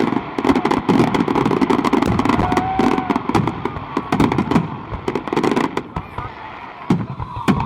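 Fireworks going off in quick, irregular succession: many sharp bangs and cracks, with a brief thin whistle about two and a half seconds in and a short lull near the end.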